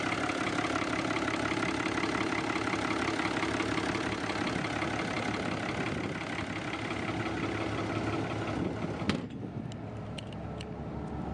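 Iveco inboard marine diesel engine idling steadily just after starting. About nine seconds in there is a sharp click, and the engine sound carries on quieter and duller, with a few light ticks.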